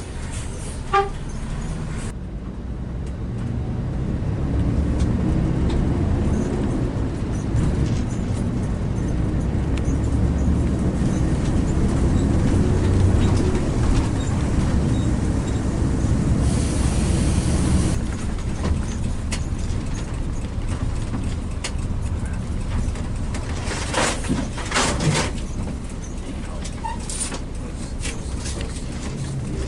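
Intercity coach bus driving: a steady low engine and road rumble that swells and then eases, with a few sharp knocks near the end.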